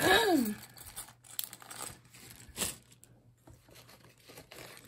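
A short vocal sound sliding down in pitch at the very start, then irregular crinkling and rustling of a plastic zip bag and paper packaging being handled.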